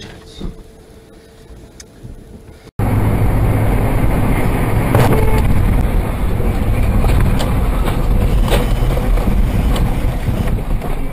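Car interior road and engine noise picked up by a dashcam: a steady low rumble as the car runs along a highway and slows down, with a few faint knocks. It starts abruptly about three seconds in, after a quieter, fading stretch.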